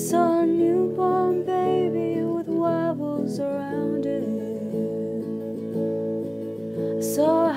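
Folk song on strummed acoustic guitar: steady chords ring under a higher melodic line that comes and goes, strongest in the first few seconds and again near the end.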